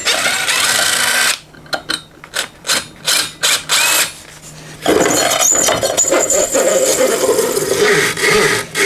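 Power tool run in two long bursts at the ATV's primary clutch, with scattered metal clicks between them, as the CVTECH clutch is fastened on.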